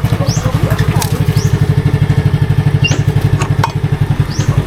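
A motor running steadily with an even, low, rapid chug, with scattered light clicks and taps over it.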